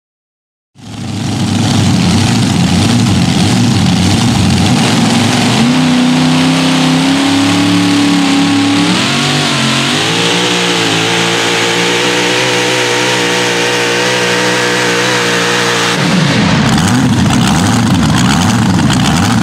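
Supercharged engine of a super modified four-wheel-drive pulling truck running hard while it pulls a sled. The sound starts suddenly about a second in and is loud. Its pitch climbs about halfway through and holds high, then breaks up into a rougher sound near the end.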